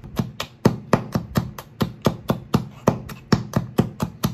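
Chinese cleaver chopping garlic cloves on a wooden cutting board: a steady run of quick knocks, about four a second, as the garlic is minced.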